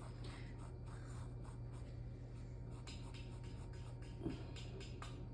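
Paintbrush dabbing and stroking on canvas through a stencil: soft, scratchy brush taps over a low steady hum, with one small knock about four seconds in.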